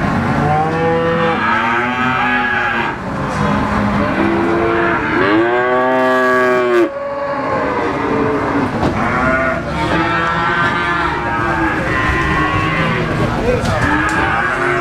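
Cattle mooing again and again, several overlapping calls that rise and fall in pitch, the longest and loudest about five to seven seconds in, over steady background noise.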